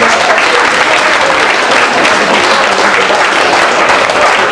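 Audience applauding steadily at ringside, dense and continuous.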